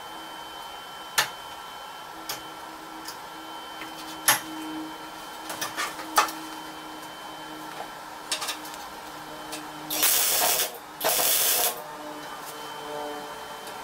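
Scattered light metal clicks and knocks as the steel panel and clamps are handled, then, near the end, two short bursts of arc-welding crackle about a second apart: tack welds on a car's steel radiator core support.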